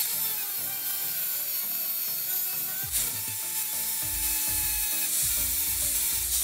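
Angle grinder with a cut-off disc cutting through a steel threaded rod, a steady high-pitched grinding whine, its pitch sagging slightly as the disc bites into the metal.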